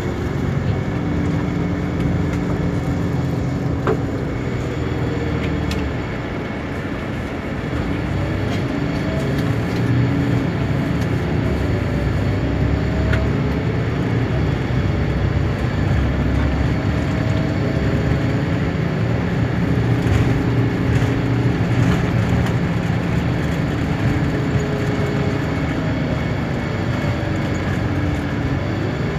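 Intercity coach engine and road noise heard from inside the passenger cabin: a steady low rumble, with the engine note rising and falling several times.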